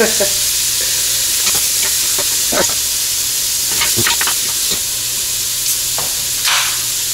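Beef chunks sizzling steadily as they brown in a hot stockpot, with a spoon knocking and scraping against the pot now and then. A short, louder hiss comes near the end.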